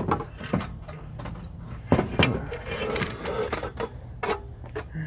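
Irregular knocks and clicks of hard parts being handled, with a short rattle in the middle and two louder knocks about two seconds in.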